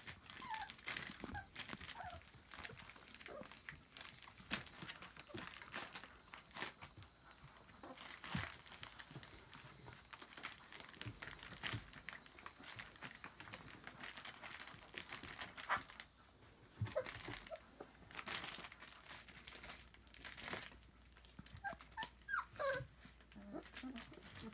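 Airedale terrier puppies treading and nosing on bubble wrap: the plastic crinkles and crackles in many small snaps, with short high puppy whines now and then, several near the end.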